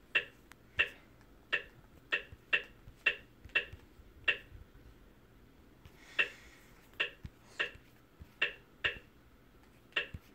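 Sharp clicks at uneven intervals, about fourteen in all and roughly one or two a second. Each click rings briefly with a clear tone. There is a pause of nearly two seconds about halfway through.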